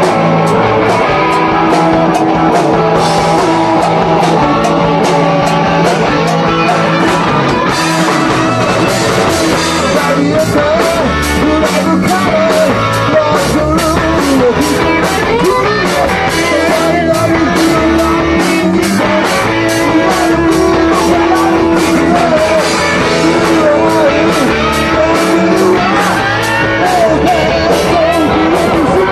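Live rock band playing loud: electric guitars, electric bass and a drum kit keeping a steady beat.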